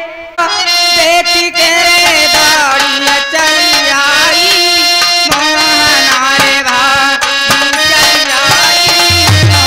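Live Indian folk music: a harmonium melody over quick hand-drum strokes, with a deep, steady drum beat coming in near the end.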